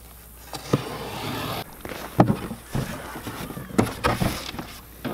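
A cardboard shipping box being opened by hand. There is about a second of steady rustling near the start, then several sharp knocks and rustles as the flaps are pulled back.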